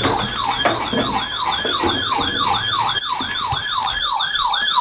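Electronic siren sounding in a rapid repeating yelp, each cycle a quick falling sweep in pitch, about three a second and speeding up slightly, with a thinner high tone warbling above it.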